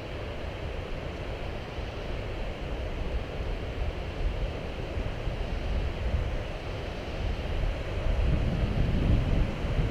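A fast-flowing mountain creek rushing in a steady roar of water, growing louder about eight seconds in as the crossing comes closer.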